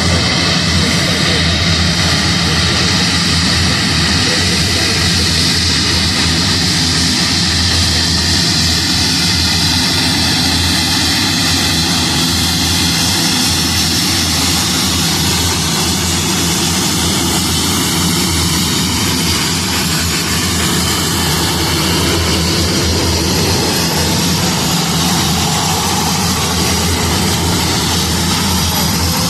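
Esquadrilha da Fumaça aircraft, Embraer A-29 Super Tucano turboprops, running their engines and propellers: a loud, steady drone with a low propeller hum and a higher whine that slowly wavers in pitch.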